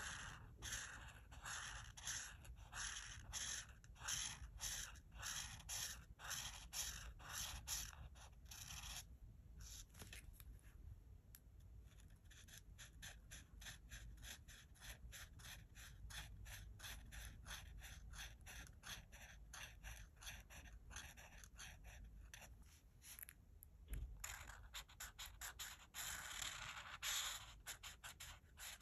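Art marker nib rubbing back and forth across colouring-book paper, about two strokes a second at first. About nine seconds in the strokes turn quicker, shorter and quieter, and broader, louder strokes return about four seconds before the end.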